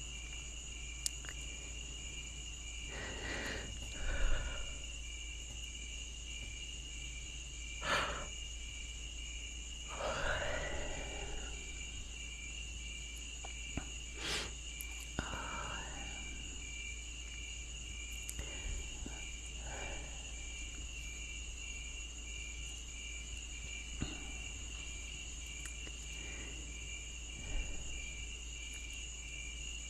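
Crickets chirping steadily in the background, a high pulsing trill. A person nearby makes a few soft breathy sounds of yawning, one of the longest about ten seconds in, along with a couple of short clicks.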